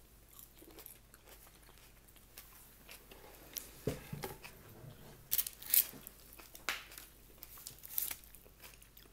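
Crunching and chewing of crispy fried food close to the microphone: scattered crisp crackles, loudest in a cluster about five to six seconds in.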